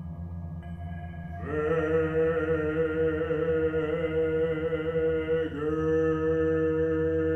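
A voice intoning a ritual word in one long, steady vibrated note, starting about a second and a half in, dipping briefly about five and a half seconds in and going straight into a second held note, over a low ambient music drone.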